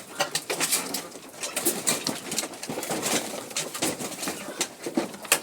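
A flock of laying hens in a small coop, making low coos and clucks among many short, sharp clicks and scratches, with one louder click near the end.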